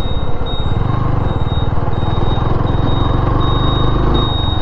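TVS Apache RTR 160 4V's single-cylinder engine running at low, fairly steady revs as the motorcycle rides slowly, its firing pulses heard close up.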